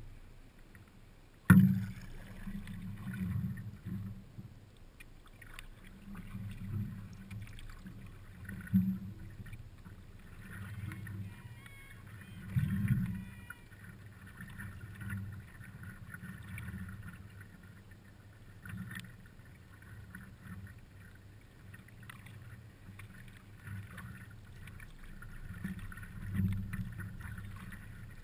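Water lapping and splashing against a stand-up paddleboard under way, with irregular low knocks on the board and one sharp knock about a second and a half in.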